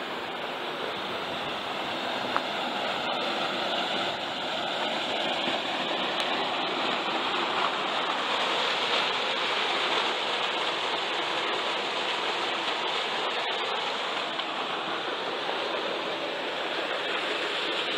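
Steady rush of running water: a stream carrying the town's wastewater down into the canyon river, a little louder in the middle.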